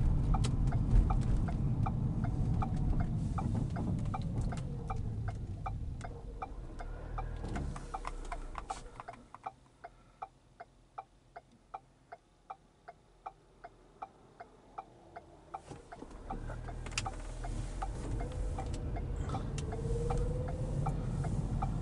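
Turn-signal indicator of a 2010 Ford Fusion Hybrid ticking steadily, a little under two ticks a second, over road and tyre noise in the cabin. From about 8 to 16 seconds in, the car is stopped and the cabin goes quiet except for the ticks; then road noise rises again as it pulls away.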